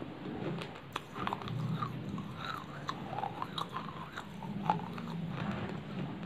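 Close-up chewing of crunchy baked clay ('clay chips'): irregular sharp crunches and cracks as the pieces break between the teeth, with wet mouth sounds in between.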